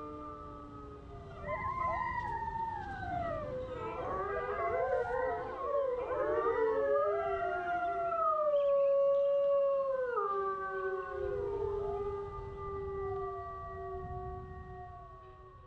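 Arctic wolf pack howling in chorus. One or two long, falling howls are joined about a second and a half in by several more voices that weave and overlap. Near the end they thin back to one or two drawn-out howls.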